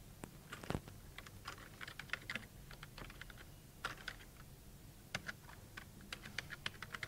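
Faint typing on a computer keyboard: irregular, scattered keystrokes as a user name is typed in.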